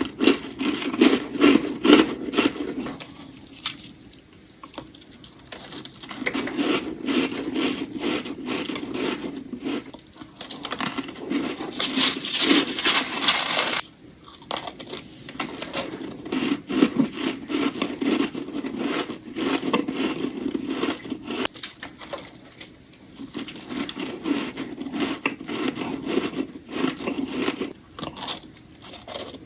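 Close-miked crunching and scraping of powdery humidifier freezer frost, in dense crackly runs, with a brighter, harsher scraping stretch about 12 seconds in.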